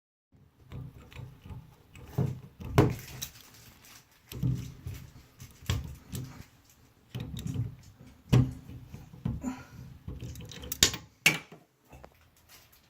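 Scattered knocks, clinks and handling noises of hard parts and tools being worked on a shower faucet, with sharper clacks about three, eight and eleven seconds in.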